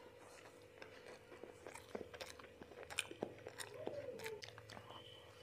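A person chewing a mouthful of burger close to the microphone: faint, scattered wet clicks and soft crunches, busiest in the middle.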